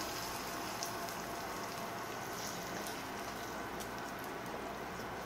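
Smoking-hot oil sizzling and crackling over chili flakes, scallion and garlic in a small bowl: a steady hiss with faint pops that slowly settles.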